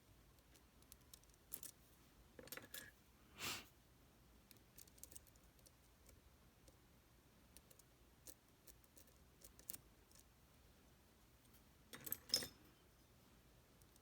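Small metal clicks and scrapes of tools working a Tesa TK100 lock, sparse and faint, with a few louder clicks about three seconds in and again near the end.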